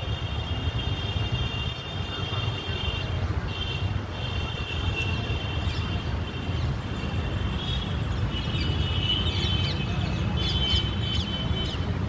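Outdoor ambience: a steady low rumble under a high, thin whistling tone that comes and goes. Short bird chirps come in over the last few seconds.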